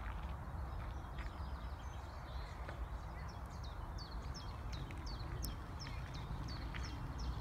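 A songbird repeating short, high, falling chirp notes, about two or three a second, becoming clear a few seconds in, over a steady low rumble.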